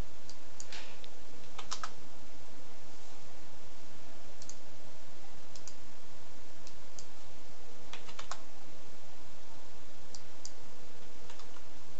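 Computer keyboard keystrokes and mouse clicks, scattered singly and in quick little runs, over a steady background hiss.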